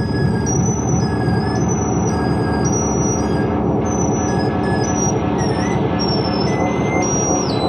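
Live harsh noise / power electronics: a loud, dense wall of distorted electronic noise with thin, shrill tones above it that jump between pitches every half second or so. Near the end the highest tone slides down.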